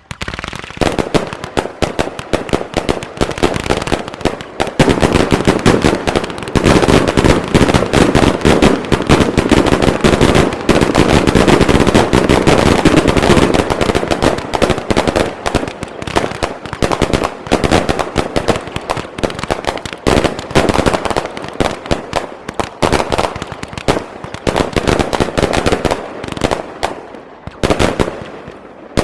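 Aerial fireworks show firing a dense, continuous barrage of bangs and crackles in rapid succession. It starts suddenly and is heaviest in the middle stretch.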